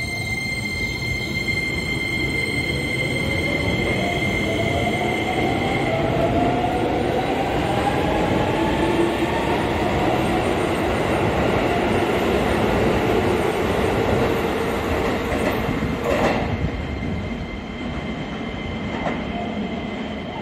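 Keisei electric train pulling out of the station and accelerating past, its motors whining and rising in pitch through the first ten seconds over the steady rumble of wheels on the rails. A single sharp clack comes about sixteen seconds in, and the noise eases as the last cars leave.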